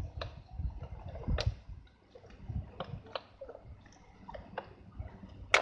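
A cardboard toy box and its packaging being handled and pulled apart: scattered scrapes and crackles, with a sharp crack about a second and a half in and the loudest snap just before the end.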